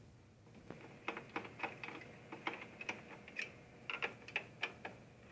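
Small sharp metallic clicks and taps, about three a second and irregular, of a screwdriver working the screws of an all-in-one PC's metal chassis and the small screws being handled. They start under a second in and stop near the end.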